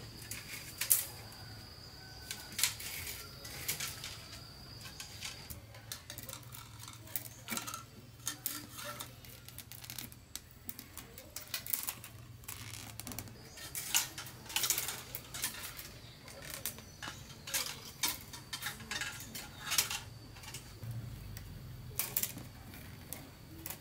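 Irregular light clicks and knocks, as of small hand work, with a thin steady high-pitched drone over the first few seconds and again through the second half.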